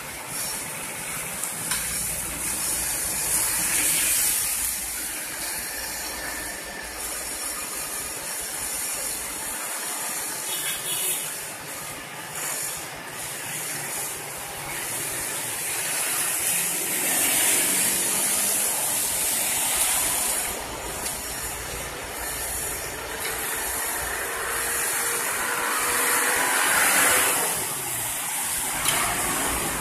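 Asphalt paver and tipping dump truck running during road paving, under a steady hiss. A bus passes close by on the wet road near the end, the loudest moment.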